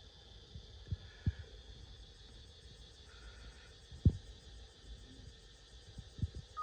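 Faint steady background hiss with a few dull low thumps, the loudest about four seconds in.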